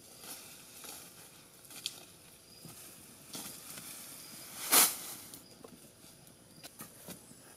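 Footsteps and rustling on dry leaf litter as a man handles a large bundle of cut grass, with a loud, short rustling crash about five seconds in as the bundle is dropped on the ground.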